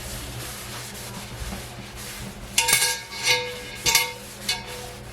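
A cloth rubbing seasoning over the rough cast-iron outside of a McClary's No. 9 kettle. From about halfway in come four light knocks on the cast iron, each with a short metallic ring.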